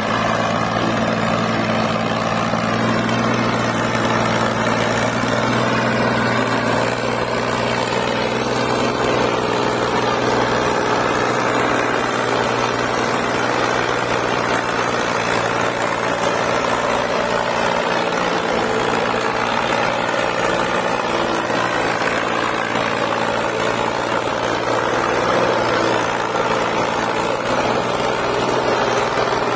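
Al-Ghazi tractor's diesel engine running steadily as it pulls a heavily loaded trolley.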